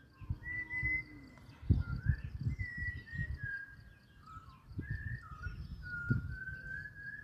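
Malabar whistling thrush singing: a rambling run of clear, drawn-out whistles that slide up and down in pitch. Irregular low thumps sound underneath, loudest about a second and a half in and again near six seconds.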